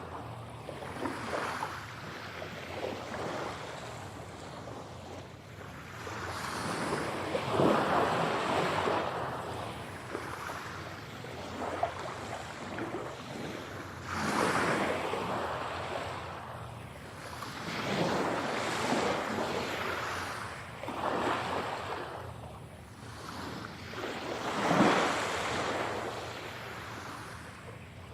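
Ocean waves breaking and washing up on a shore, surging about every few seconds with a hiss that rises and falls between breakers, the strongest near the end. The recording is processed as 8D audio, panned around the listener.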